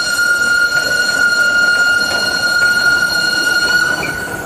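Steam locomotive whistle sounding one long, steady high note that cuts off about four seconds in.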